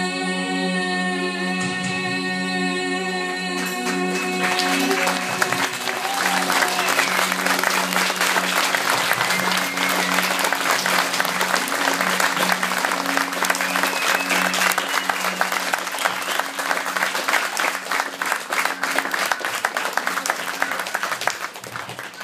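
A song ending on a held final chord, then audience applause from about four seconds in that carries on to the end, with sustained low notes of the music going on beneath it.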